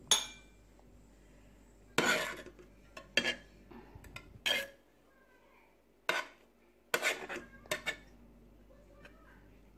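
A metal spoon clinks and scrapes against the side of a metal pot of hot tea while the tea bags are scooped out. About eight sharp knocks come at uneven intervals, the loudest at the very start and about two seconds in.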